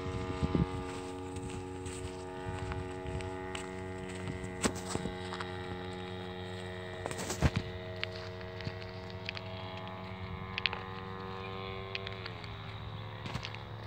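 Giant radio-controlled model airplane flying overhead, its engine droning steadily; the pitch drops about twelve seconds in. Scattered faint clicks sound over it.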